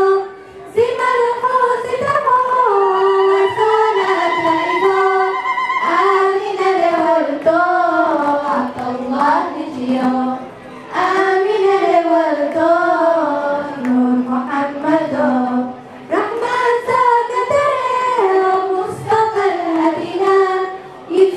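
Girls' and young women's choir singing a Harari manzuma, a devotional madih song, together in one melody line into microphones. Long held and sliding notes, with short pauses between phrases.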